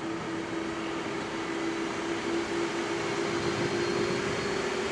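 Airbus A330 jet engines spooling up as takeoff thrust is first applied, heard inside the cockpit as a steady hum over a rushing noise. The hum slowly gets louder and rises a little in pitch about four seconds in.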